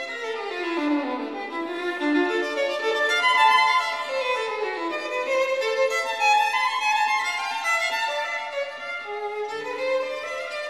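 Background music led by a violin playing a flowing melody with descending runs of notes.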